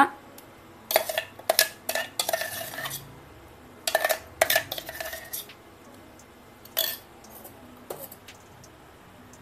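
A spoon and a wooden spatula scraping and knocking against the inside of a stainless-steel mixer-grinder jar, clearing out thick ground paste. Short clinks and scrapes come in two clusters, with a couple of single knocks near the end.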